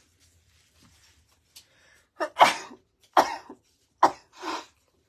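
A person coughing three times in quick succession, about two seconds in, each cough loud and abrupt.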